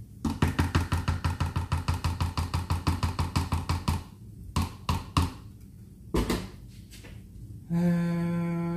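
Spoon stirring and scraping a thick, mash-like mixture in a Moulinex Cookeo's metal inner pot: a fast, even beat of about nine strokes a second for some four seconds, then a few separate knocks of the spoon. Near the end a man starts humming.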